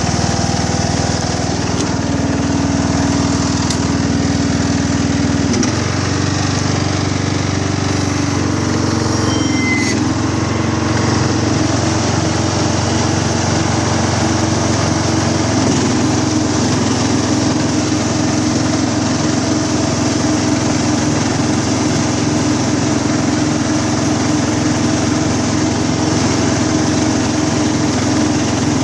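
Husqvarna CHT 130 hydrostatic ride-on mower running steadily, its engine note shifting slightly a few times.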